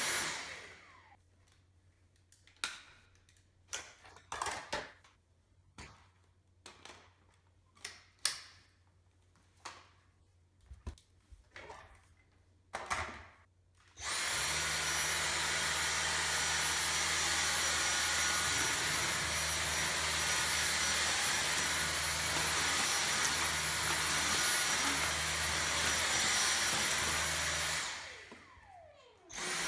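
Dyson V6 cordless stick vacuum switched off, its motor whining down in falling pitch; then about 13 seconds of scattered clicks and knocks from handling the machine. It starts again suddenly about halfway through and runs steadily, winds down once more a couple of seconds before the end, and starts again right at the end.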